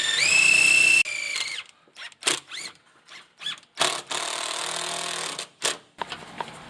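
Power drill-driving a screw home: the motor whine climbs in pitch in steps and cuts off about a second in, then comes in a series of short trigger bursts and one longer run as the screw is seated, stopping about six seconds in. Light clicks follow near the end.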